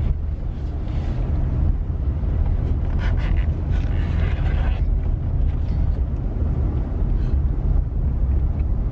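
Steady low rumble inside a car's cabin, the car's engine and running noise, with some faint brief higher noises over it.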